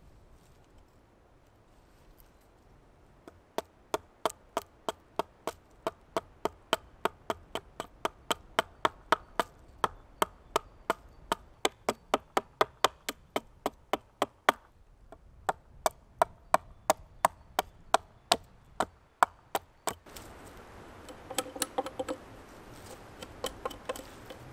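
Hultafors Hultan hatchet chopping into the end of a green wooden pole: a steady run of sharp woody chops, about three a second, with a brief pause midway. Near the end come quicker, lighter strikes.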